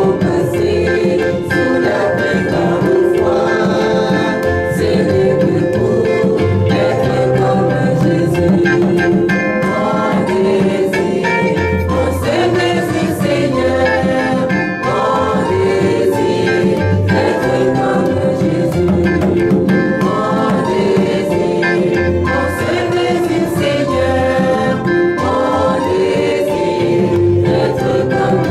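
Church choir of women's and men's voices singing a hymn together, over an instrumental accompaniment with steady bass notes and light percussion.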